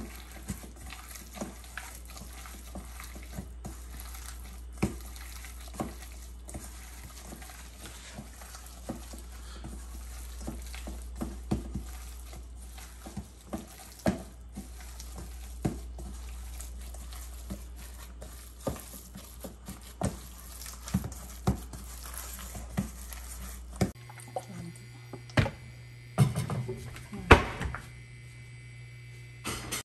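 Gloved hand mixing sliced raw beef in a stainless steel bowl, with scattered small clicks and knocks over a steady low hum. About 24 s in the hum changes and a few louder knocks sound, around a nonstick frying pan with oil on the stove.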